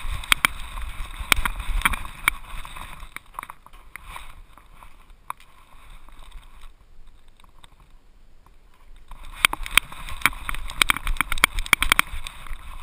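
Rubbing and rapid clicking from a camera harness strapped to a moving dog's back: busy for the first three seconds, quieter for several seconds, then busy again from about nine seconds in.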